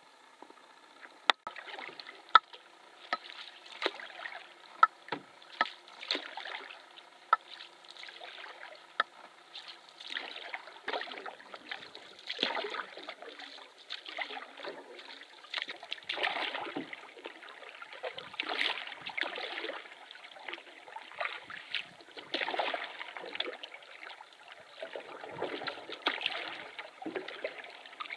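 Canoe being paddled: water swishes and gurgles with each stroke, about one every one and a half to two seconds, with a few sharp knocks in the first ten seconds.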